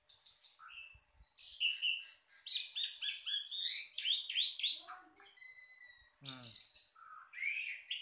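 Birds chirping and singing in quick runs of high notes, with a short, lower falling call about six seconds in.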